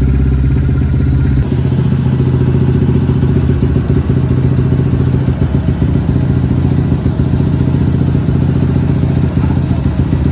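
Yamaha WR155R's single-cylinder four-stroke engine running steadily at idle, freshly reassembled and serviced, on its first test run after the rebuild.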